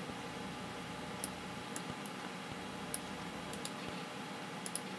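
Steady hum of a running Packard Bell Legend 818CDT desktop computer, with faint, scattered clicks, about eight, some in quick pairs.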